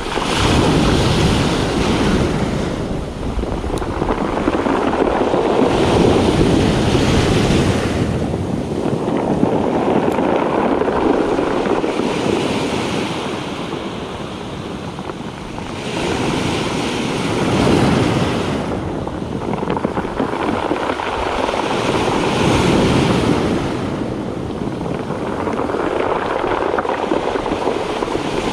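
Sea surf breaking and washing up a pebble beach, each wave swelling and fading every four to six seconds.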